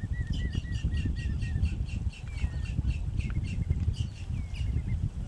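Birds calling: a fast series of short repeated notes, about four a second, overlapping at first with a run of lower slurred notes. Behind them is a steady low rumble.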